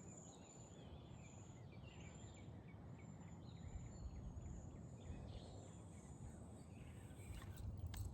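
Faint outdoor bird calls: a run of short chirping notes with thin, high drawn-out notes above them, over a steady low background noise.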